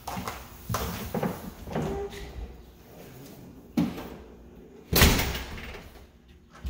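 A door shutting with a loud thump about five seconds in, after a few softer knocks and footsteps on a hardwood floor.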